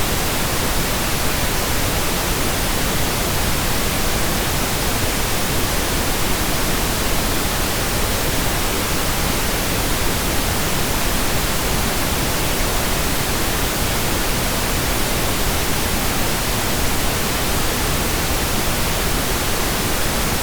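Steady synthetic pink noise: an even, unchanging hiss spread across all pitches, with no events or variation.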